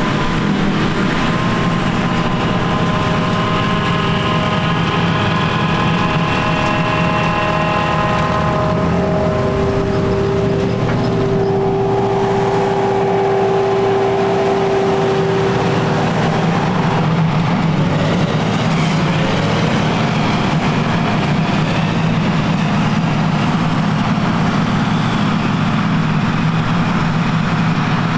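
John Deere 6950 self-propelled forage harvester chopping grass silage, with a New Holland tractor and trailer running alongside. A loud, steady heavy drone carries a whine that changes pitch a couple of times.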